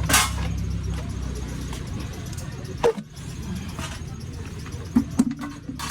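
A motor vehicle's engine running steadily, fading out about halfway through, with three sharp clicks or knocks: one at the start, one near the middle and one near the end.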